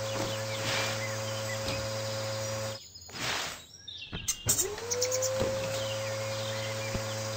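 Steady electronic tone from the AR app, held over a low hum. It breaks off about three seconds in and swoops back up to the same pitch a second and a half later, with faint chirps over it.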